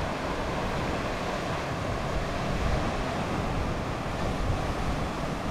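Ocean surf washing along a rocky shore, mixed with wind buffeting the microphone: a steady, even rush of noise.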